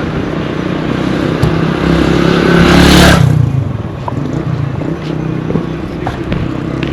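A motor vehicle passes close by. Its engine grows louder and peaks about three seconds in, then drops in pitch and fades as it goes past, leaving steady street traffic noise.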